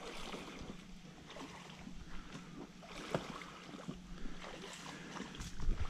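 Faint splashing and scattered irregular knocks of footsteps wading through a shallow, rocky creek.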